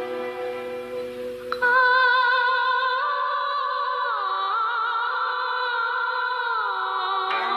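Slow opening theme music. A held instrumental chord, then about one and a half seconds in a high wordless voice enters, holding long notes with vibrato and stepping down in pitch twice.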